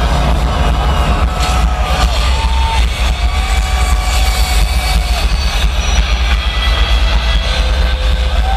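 Loud music from the arena PA during the animated train intro film, with long held tones each lasting a second or two and a heavy, constant low rumble.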